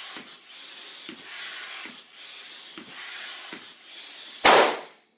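Hand floor pump inflating a balloon, a rush of air with each stroke, about one stroke every 0.8 seconds. About four and a half seconds in, the balloon bursts with a loud pop.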